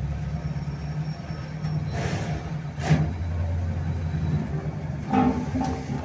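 Old road roller's diesel engine running steadily with a low rumble, with a sharp knock about three seconds in.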